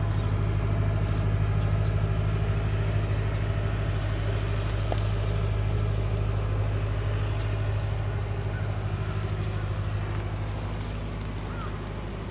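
Tractor engine idling steadily, a constant low hum with no change in speed.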